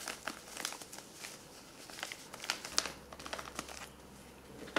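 Thin freeze-dried pudding packet crinkling in the hands, with irregular crackles throughout, as it is opened and tipped to pour its chocolate pudding powder into a glass bowl.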